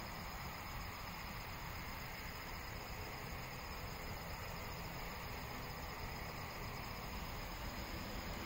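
Steady outdoor ambience: an even hiss with insects, such as crickets, droning.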